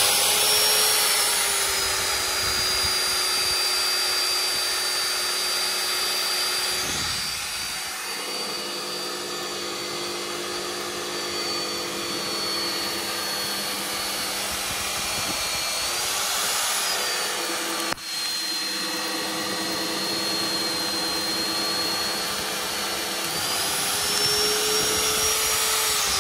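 Magnetic drill with an annular cutter boring through steel plate: a steady motor whine that sags in pitch as the cutter bites and rises again near the end.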